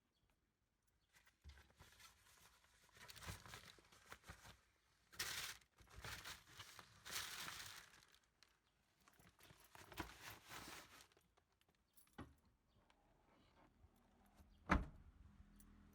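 Irregular rustling and crinkling, as of a bag or packaging being handled, in several bursts, followed by a click and then a single sharp knock near the end.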